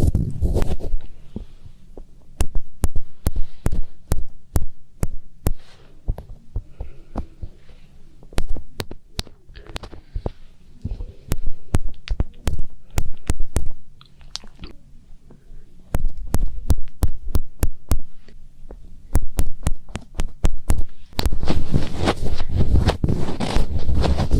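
Fingertips rubbing and pressing in the ear of a binaural microphone for finger ear-cleaning ASMR. There are many sharp crackling clicks, with spells of close, muffled rumbling as the fingers press in, heaviest near the end.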